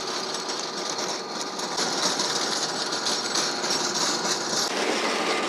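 Compact tractor running with its rear rotary tiller churning soil: a steady mechanical noise.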